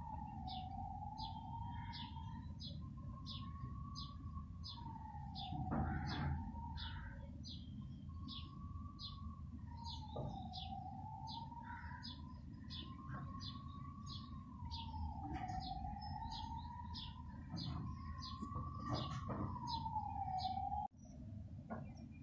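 Background soundtrack: a slowly wavering tone that rises and falls about every five seconds, over short chirps repeating about one and a half times a second and a low hiss. It cuts off suddenly near the end.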